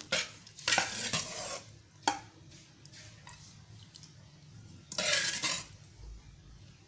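A spoon stirring thick chicken curry in a glass bowl: a few short scraping strokes near the start and again about five seconds in, with a sharp knock of the spoon against the bowl about two seconds in.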